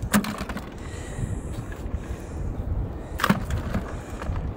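Low, steady wind rumble on the microphone, with a few sharp knocks and clicks from the crab net being handled on the concrete deck. The loudest knock comes about three seconds in.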